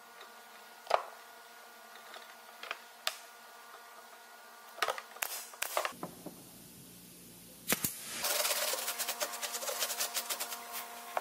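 Scattered sharp wooden taps and clicks as plywood strips and a glue bottle are handled on a wooden worktable, then from about eight seconds in some three seconds of fast, scratchy rubbing and clicking as a gloved hand works over the glued herringbone plywood surface.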